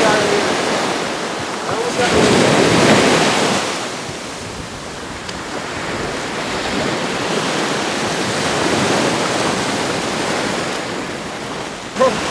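Surf breaking and washing up the beach in repeated surges, the loudest about two to four seconds in, with wind buffeting the microphone.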